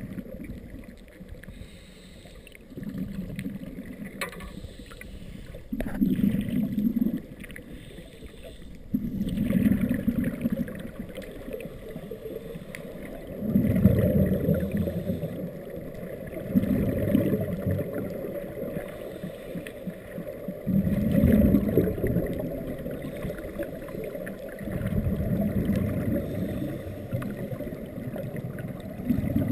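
Muffled underwater sound heard through a camera housing: a scuba diver's exhaled regulator bubbles gurgling in bursts of one to two seconds, about every three to four seconds, over a low steady rumble.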